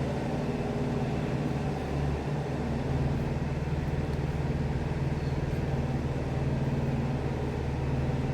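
A steady, low mechanical hum with a few constant tones, like a motor or engine running.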